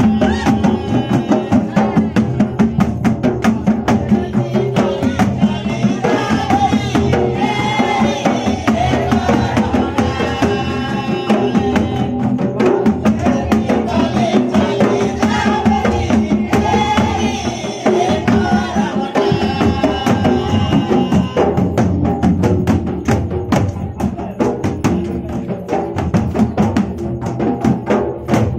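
Double-headed barrel drums (mandar) played by hand in a fast, driving folk rhythm, with a chorus of voices singing a Karam song over them for much of the time. Near the end the drumming carries on with little singing.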